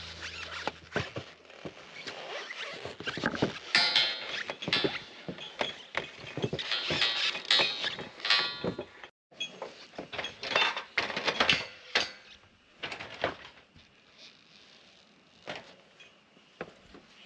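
Shoes stepping and scuffing on a corrugated steel roof, with irregular taps and scrapes on the metal panels. The sound is busiest in the first half and thins out to sparse taps near the end.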